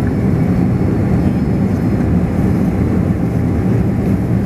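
Airliner's jet engines running at taxi power, heard inside the passenger cabin as a steady low rumble with a faint steady tone above it, while the plane taxis and turns before takeoff.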